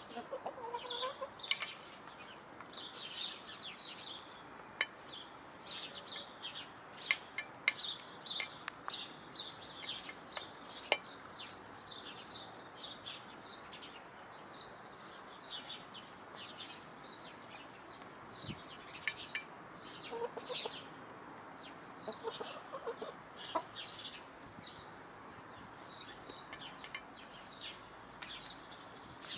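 Hens clucking while they peck at food in a metal bowl. Short high chirps run throughout, with scattered sharp peck clicks and a few lower clucks near the start and again about two-thirds of the way in.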